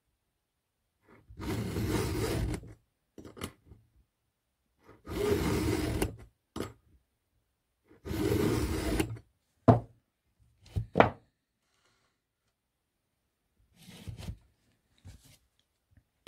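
A round file in a file-holder guide is pushed across a cutter of an H25 saw chain in three long rasping strokes, each just over a second long and a few seconds apart. A few short sharp metallic clicks follow.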